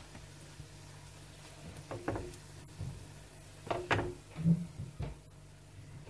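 A spatula knocking and scraping against a non-stick frying pan and a plate as fried French toast slices are lifted out: a few light knocks about two seconds in, then a cluster around four to five seconds in, the loudest near four seconds, over a low steady hum.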